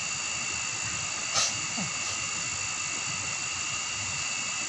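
Steady shrill chorus of forest insects at several high pitches, with one sharp click about a second and a half in.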